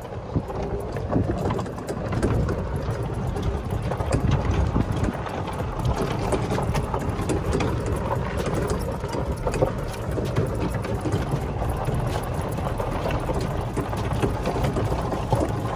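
Golf cart running along a dirt track: a steady low rumble of the cart under way, with frequent small knocks and rattles.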